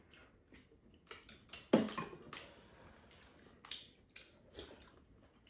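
Spoons and chopsticks tapping and clinking against ceramic bowls and a pan during a meal: a few scattered, short clicks, with one louder clink a little under two seconds in.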